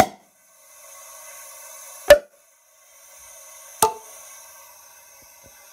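Three sharp hammer taps on the valve gear of a 2.8 CRD diesel cylinder head: one right at the start, one about two seconds in and one near four seconds. Between them a faint steady hiss of compressed air from the leak-down tester escapes past the cylinder #2 valves. The taps are meant to seat the valves, and the pressure drops as they land.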